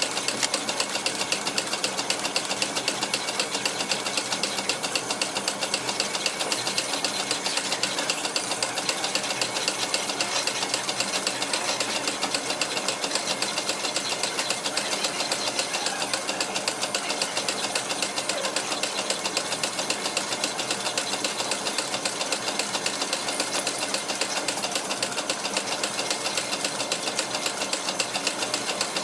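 Stationary steam engine thumping at a rapid, even beat while it drives the workshop line shaft and the machinery running off it.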